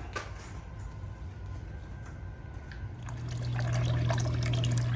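Water running and trickling, growing louder with a low steady hum about three seconds in. It is likely water being added to the toy dragon's reservoir for its mist 'fire-breathing' effect.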